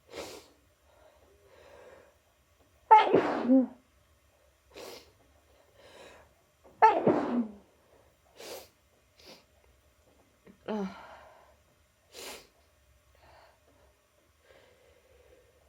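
A person sneezing: three loud sneezes about four seconds apart, each opening on a voiced cry that falls in pitch, with short sharp sniffs and breaths between them.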